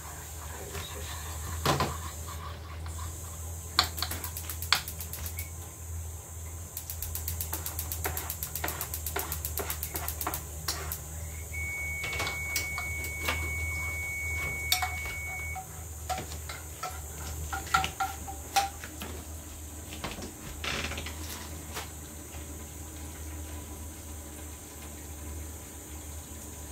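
A metal spoon clinking, tapping and scraping against a small frying pan while stirring and ladling a sauce, in scattered knocks with a steady low hum beneath. A thin steady high tone sounds for about four seconds midway.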